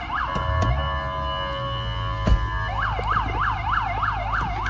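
Emergency-vehicle siren in a fast yelp, rising and falling about four times a second. It switches to a steady held tone for a couple of seconds, then goes back to the yelp. A single thump comes a little after two seconds in.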